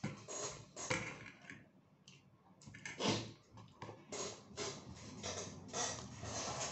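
Eating by hand: fingers scraping and mixing rice and sardines against a ceramic bowl and chewing, with scattered light taps and a sharper knock about three seconds in.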